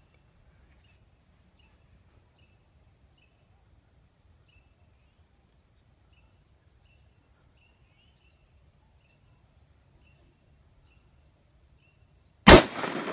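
Faint bird chirps, short high peeps about once a second, then near the end a single loud hunting gunshot fired at a black bear, its report echoing and rolling away. The shot is a hit.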